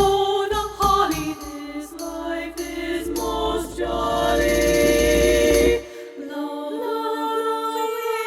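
Treble choir singing in close harmony, with hand-drum strikes near the start and a rolling hand drum and tambourine building under a held chord. The percussion cuts off suddenly about six seconds in, leaving the voices alone on a sustained chord.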